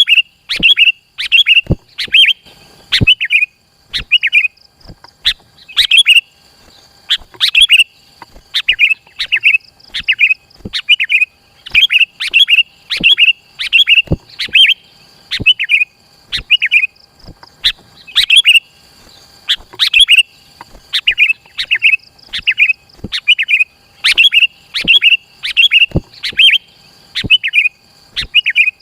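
Sooty-headed bulbul (kutilang) calling over and over in short, bright phrases, about one to two a second with hardly a pause between them. Many of the phrases begin with a sharp click.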